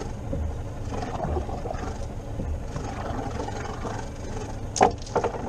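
Steady low rumble of wind and water around a small inflatable boat at sea, with a sharp knock near the end followed by a couple of lighter knocks.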